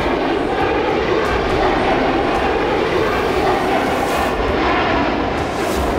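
Jet fighter's engine noise, steady and loud.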